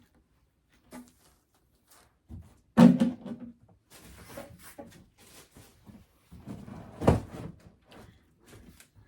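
Knocks and thuds of prop parts being handled in a large cardboard box, with softer scraping and rustling between them; the loudest thud comes about three seconds in and another near seven seconds.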